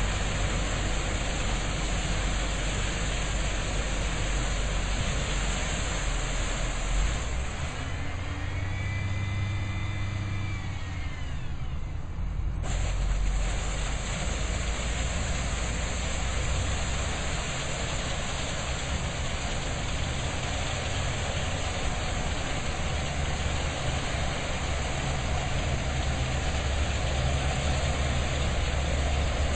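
Cotton module truck's engine running under a heavy wash of wind noise. From about eight seconds in, a whine rises and falls in pitch for a few seconds, then the noise returns suddenly.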